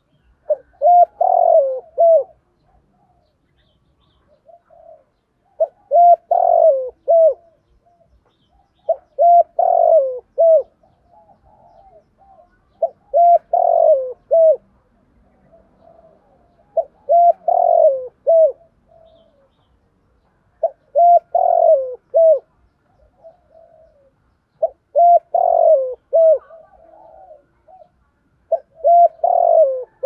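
Spotted dove cooing loud, clear phrases of a few arching coos each, repeated about every four seconds for eight phrases. Fainter, softer notes sound between the phrases.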